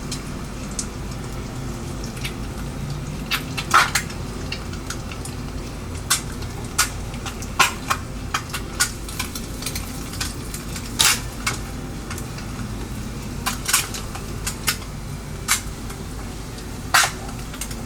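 A metal utensil clinking and scraping against a frying pan in irregular sharp clicks, over the steady sizzle of eggs frying in butter as a fried egg is lifted out.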